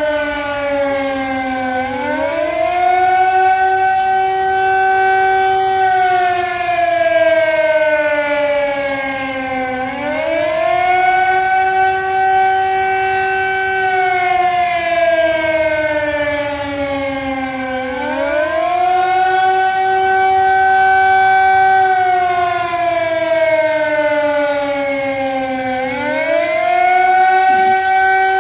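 Civil-defence warning siren sounding during a siren test, wailing: the tone rises quickly, holds, then slides slowly down, over and over about every eight seconds. This rising-and-falling wail is the alarm signal of Austria's annual siren test.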